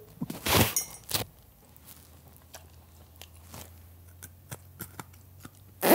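A person chewing food in the mouth, with small crunches and wet mouth clicks, after a couple of breathy noises in the first second; a sharp breath comes near the end.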